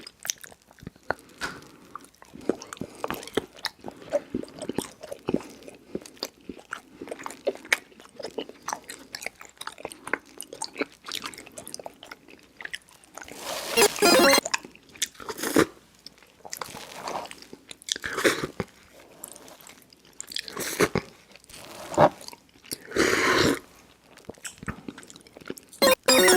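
Crunching and chewing sounds: many small crackles and clicks, with several louder crunches spread through.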